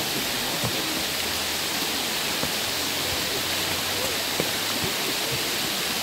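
Bigar waterfall's water falling in many thin streams over a moss-covered rock curtain into its pool: a steady, even rush and hiss.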